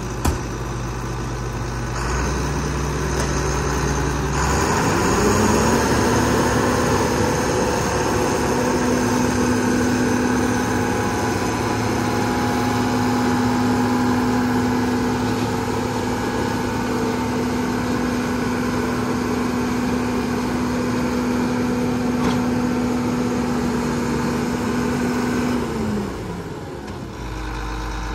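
John Deere 5830 self-propelled forage harvester running: its whine rises about four seconds in, holds steady at speed, then winds down near the end.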